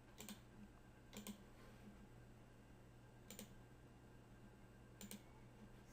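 Faint clicks of a computer mouse, four times over near silence, two of them as quick double clicks.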